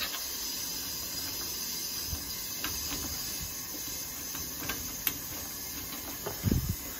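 Steady hiss of water running in through the boiler feed valve as the hydronic heating system refills after a drain-down, with a few light clicks of a braided hose fitting being threaded onto a purge valve.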